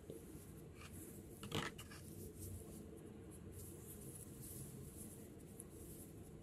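Faint rustling and rubbing of hands handling a crocheted yarn piece, with one brief louder scrape about a second and a half in.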